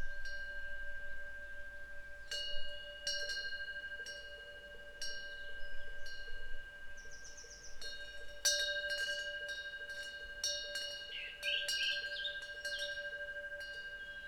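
Korean temple wind bell (pungyeong) ringing: its clapper strikes at irregular intervals, in small clusters, and each strike leaves a long, steady ring of a few tones. A bird chirps briefly a couple of times over the ringing, about halfway and again near the end.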